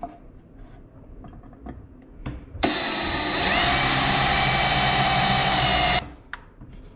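Cordless drill running as it bores a hole through a kayak seat strap's webbing: it starts a little over two seconds in, rises slightly in pitch as it gets up to speed, and stops suddenly after about three and a half seconds. Faint handling ticks come before it.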